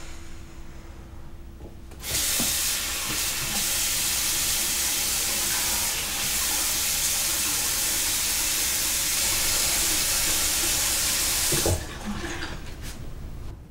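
Bathroom sink tap running full: a steady rush of water that starts suddenly about two seconds in and cuts off sharply near the end with a knock.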